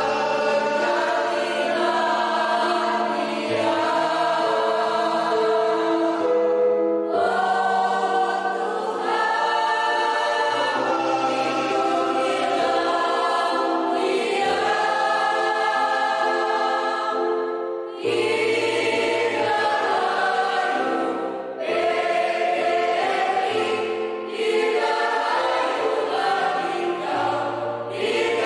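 Mixed choir of women and men singing together, sustained notes with short breaks between phrases.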